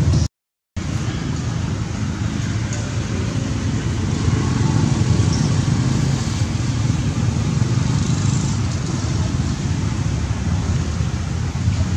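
Steady low background rumble, which drops out completely for about half a second near the start.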